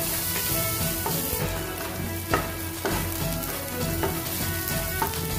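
Minced garlic, ginger and green onion sizzling in hot chili oil in a wok over high heat, stirred with a wooden spatula that scrapes and knocks against the pan several times.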